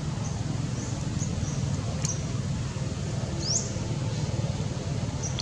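A scatter of short, high-pitched animal chirps and squeaks. The loudest is a quick rising sweep about three and a half seconds in, and there is a sharp click about two seconds in. Underneath runs a steady low rumble.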